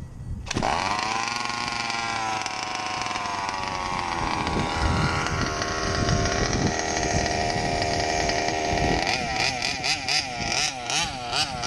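RCMK 30cc two-stroke gas engine of a 1/5-scale King Motors Baja RC buggy firing up about half a second in after a pull-start, then running steadily. From about nine seconds in it revs up and down in quick repeated throttle blips.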